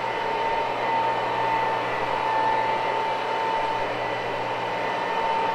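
Electric motor of a carpet-cleaning machine running steadily, giving a constant high whine over a low hum and a hiss of air.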